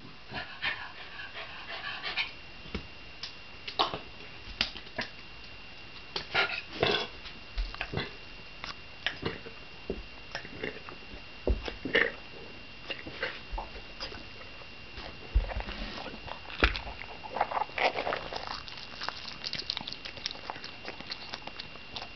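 Shiba Inu eating food off a wooden floor: irregular wet chewing, licking and smacking clicks, with some sniffing and a few low thumps.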